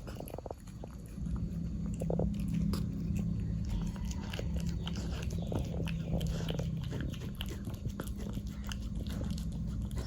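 A cat eating wet food (tuna in gravy) close to the microphone: a run of quick, irregular wet chewing and lip-smacking clicks. A steady low hum comes in about a second in.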